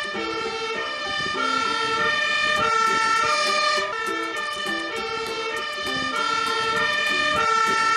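Two-tone siren of an aerial-ladder fire engine, stepping back and forth between a high note and a low note.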